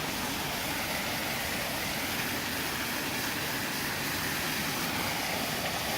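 Steady rushing of water from a small creek waterfall, an even hiss with no breaks.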